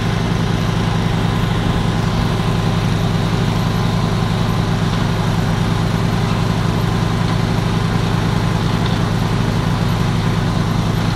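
Engine of an SB-PM "Kolibri" drilling rig running steadily at an even, unchanging speed.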